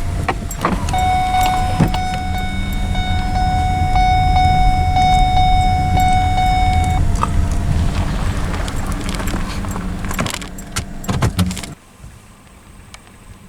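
A car stopping and parking: engine running under jangling keys and clicks, with a steady electronic warning chime for about six seconds. The engine rumble and rattling stop abruptly about twelve seconds in.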